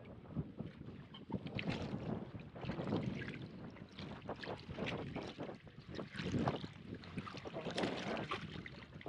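Hooked northern pike thrashing and splashing at the surface beside a boat as it is brought to the landing net, with lake water slapping the hull and wind on the microphone.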